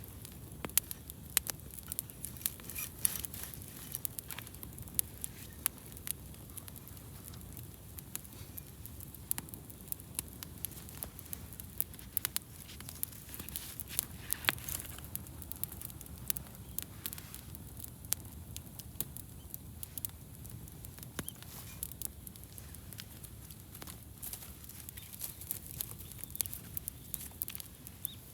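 Wood fire crackling: irregular sharp pops and snaps throughout, over a soft steady low rumble of the flames.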